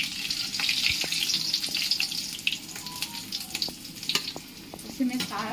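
Besan-battered potato fritters (aloo gunda) sizzling in hot oil in a steel kadhai: a steady high hiss with scattered light ticks.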